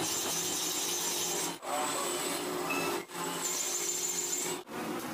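Metal lathe turning a meat grinder housing while the cutting tool scrapes at its threaded neck. The sound breaks off briefly three times where short clips are joined.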